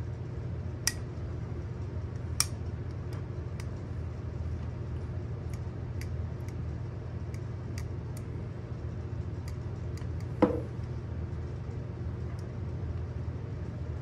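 Metal clicks and snaps from a folding multi-tool as its handles and pliers are swung open and locked, with many small ticks and one louder snap about ten and a half seconds in. A steady low hum runs underneath.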